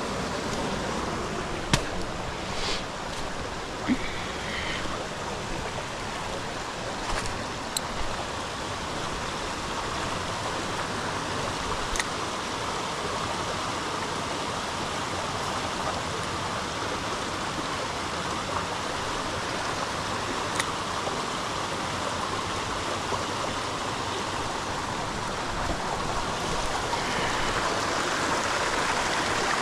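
Creek water running steadily over stones, with a few sharp clicks and knocks here and there.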